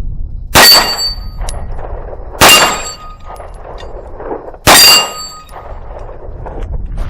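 Three shots from a CZ P-10 C 9mm pistol, spaced about two seconds apart, each leaving a short ringing tail.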